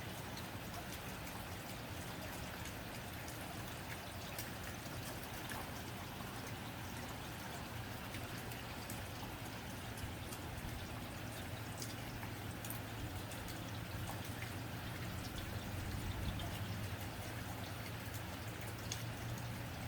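Steady rain on a tin roof: an even patter dotted with sharp individual drop ticks, over a low steady rumble.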